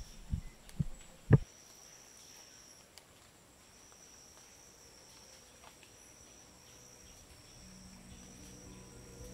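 A few low knocks, the loudest about a second in, then an insect's high, steady trill repeating in pulses about a second long. Soundtrack music fades in faintly near the end.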